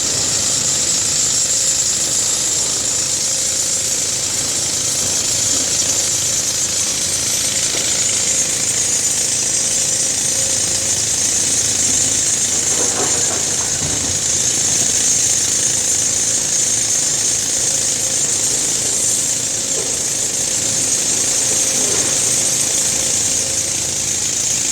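Case excavator's diesel engine running steadily under working load, with a fast, even mechanical rattle and a steady high hiss, and a couple of faint knocks partway through.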